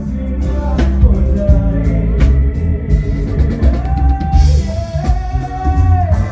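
Loud live pop band music through a PA sound system: a heavy bass beat, drums and a singing voice, with a long held melody note in the second half.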